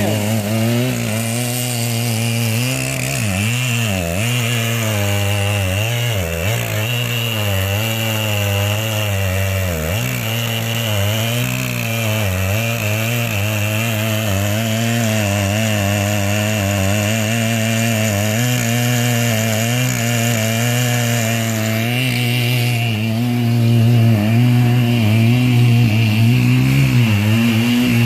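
Large chainsaw running under load as it cuts into the base of a big tree trunk, its engine pitch wavering as the bar bites and eases through the wood. It gets louder near the end.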